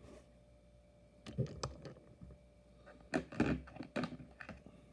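Light clicks and taps from small diecast model cars being handled and set down on a hard surface, in two brief clusters: about a second in, then a louder run from about three seconds in.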